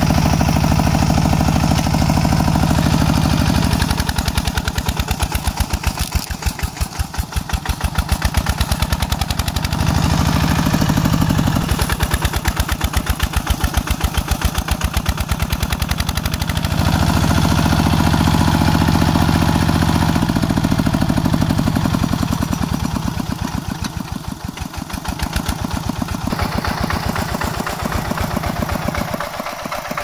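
Bulldozer's diesel engine running with a rapid, even chugging beat. Its sound and loudness shift several times between a steadier drone and harder pulsing.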